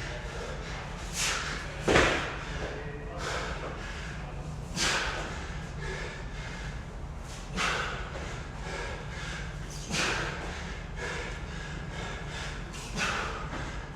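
A person breathing hard from exertion, with short forceful exhalations every couple of seconds, and one sharp thud about two seconds in.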